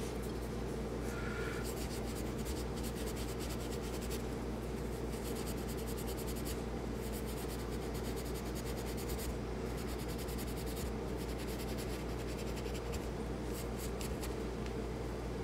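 Steel wool scrubbing a pistol's steel slide in quick back-and-forth strokes, a dense fine scratching with a few short pauses, over a steady low hum. It is rubbing off light surface rust.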